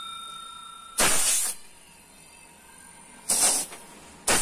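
Three short hissing blasts of pressurised gas: one about a second in, a shorter one past the middle, and a third starting near the end.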